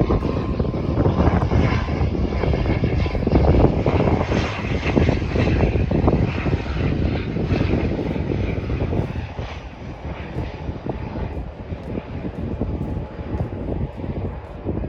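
Airliner jet engines at an airport, a loud steady rushing noise that peaks about four seconds in and eases off after about nine seconds.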